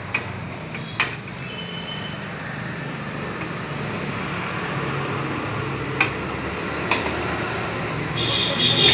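Steady background rumble with four short, sharp knocks in it: two close together at the start and two about a second apart past the middle. Near the end a louder sound with a high steady tone rises in.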